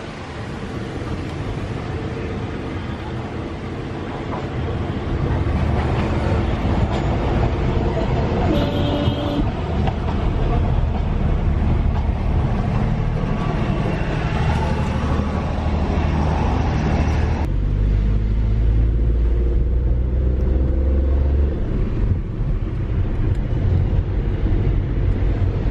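A car driving on a road, heard from inside the cabin: engine drone and road noise. It gets louder about a fifth of the way in, and about two-thirds through the higher hiss drops away suddenly, leaving mainly a low drone.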